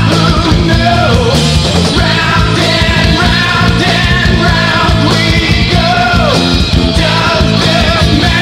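Progressive/power metal band playing loud: distorted guitars, bass and drums, with a high lead melody that bends in pitch above them.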